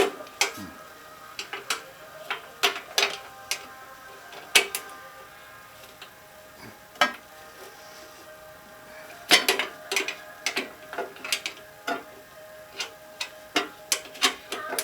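Ratcheting 10mm box wrench clicking in short, irregular runs as it turns a nut, with sharper metallic clicks in between.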